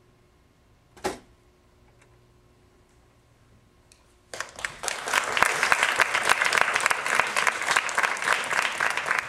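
A single short knock about a second in, then a quiet stretch, then an audience breaks into dense, continuous applause about four seconds in as the stage goes dark.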